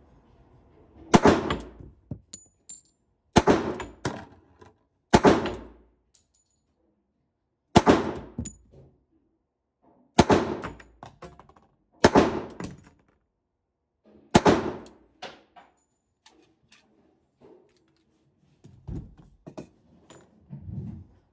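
Seven pistol shots from an AMT Hardballer Longslide .45 ACP, fired about two seconds apart, each a sharp report with a brief ringing tail, muffled by the hidden camera. A few faint handling knocks follow near the end.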